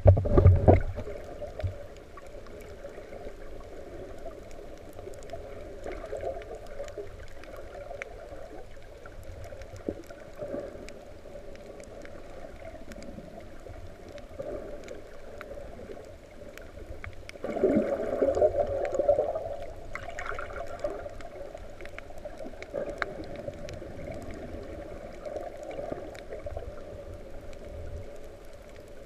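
Muffled underwater wash of surge moving over a shallow reef, heard underwater, with scattered faint clicks. It is louder in the first second and swells again about 17 to 20 seconds in.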